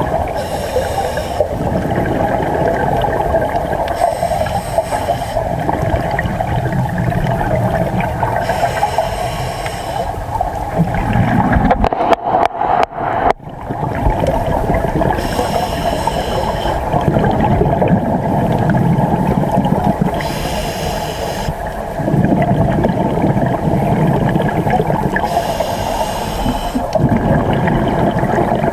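Scuba diver breathing through a regulator underwater: a hiss with each inhalation alternates with a low bubbling rumble of exhaled air, one breath about every four to five seconds. The sound briefly breaks off about twelve seconds in.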